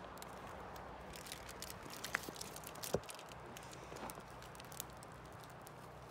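Wood fire crackling in a small stainless steel camp stove: scattered small pops over a low steady background, with two sharper snaps about two and three seconds in.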